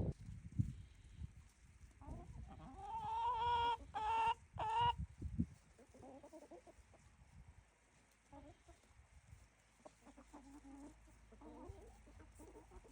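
Chickens clucking: a hen gives three drawn-out calls in the first half, the loudest near the middle, followed by softer, scattered clucks.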